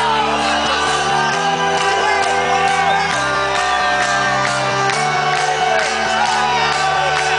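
Loud trance music over a festival sound system: sustained synth chords whose bass note shifts about every two seconds over a steady hi-hat beat, with crowd members shouting and whooping over it.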